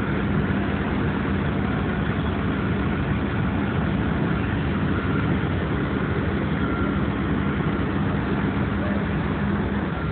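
SANY crawler crane's diesel engine running steadily, a constant low drone.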